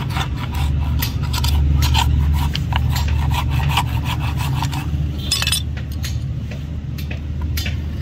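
Farrier's flat hoof rasp scraping back and forth across a horse's hoof wall, finishing it around a newly nailed shoe. The strokes come quickly, about three a second, then thin out after about four seconds, with one sharper scrape about five seconds in. A steady low hum runs underneath.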